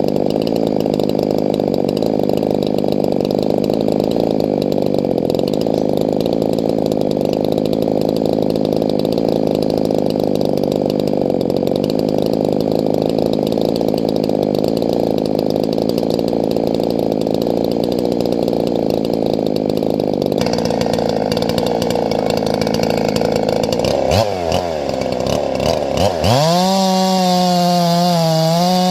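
Gas chainsaw cutting through a log under load, its engine note steady. Near the end the engine pitch swoops down and back up, then the saw runs at a steady high pitch, out of the wood.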